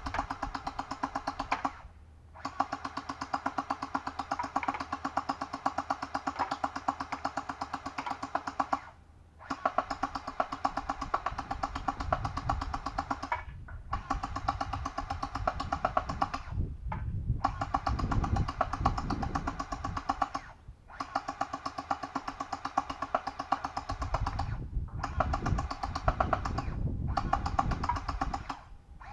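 HK416 V2 gel blaster firing full-auto in long bursts: the electric gearbox motor whines while the mechanism cycles in a fast stream of clicks. There are about eight bursts, each several seconds long, with brief gaps between them.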